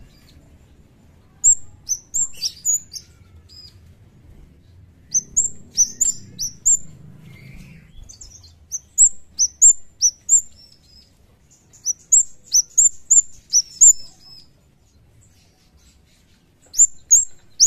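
Scarlet-headed flowerpecker calling: runs of quick, high, thin notes, each sweeping downward, broken by short pauses.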